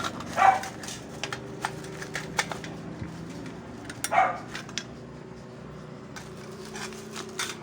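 A dog barks twice, once about half a second in and again about four seconds in, amid scattered light clicks and knocks.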